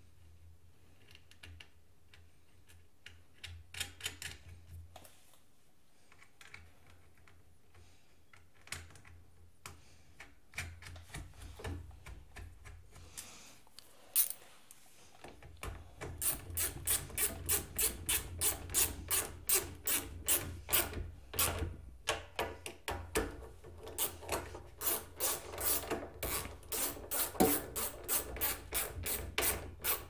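Hand socket ratchet clicking in short, repeated back-and-forth strokes, running nuts down onto the carburetor mounting studs. It starts about halfway in, after a stretch of faint scattered clicks and scraping from the nuts being threaded on by hand.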